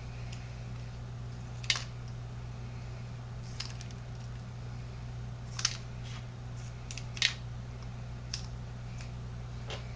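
Scattered light clicks and taps of shotgun shells and small plastic pieces being handled and set down, about six in all, over a steady low hum.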